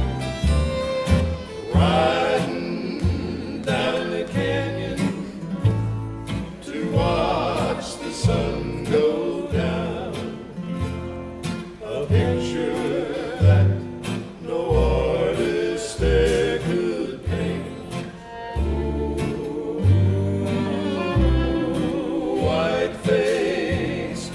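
Western harmony group singing together, backed by strummed acoustic guitars, a plucked upright bass and a bowed fiddle.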